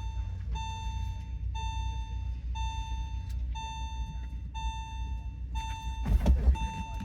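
An electronic beep repeating about once a second over a low, steady engine rumble, with a brief louder rush about six seconds in.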